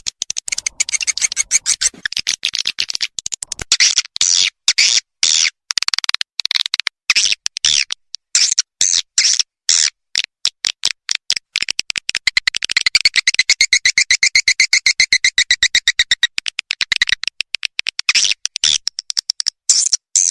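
Swiftlet lure call recording: rapid trains of short, high chirps and clicks, with a longer trilling twitter in the second half. It is the kind of call track played from a swiftlet house to draw swiftlets in to roost and nest.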